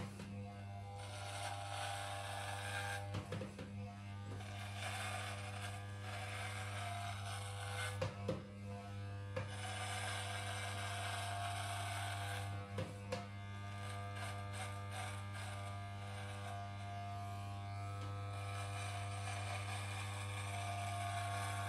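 Corded electric hair clipper running with a steady hum as it trims grown-out stubble on the scalp, with a few brief knocks along the way.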